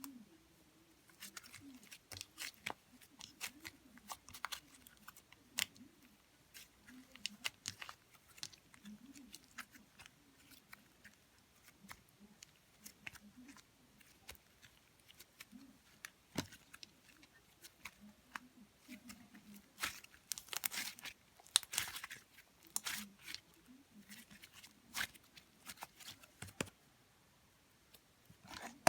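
Irregular crinkling and crackling, a rapid run of sharp little clicks that comes and goes, densest about twenty to twenty-three seconds in.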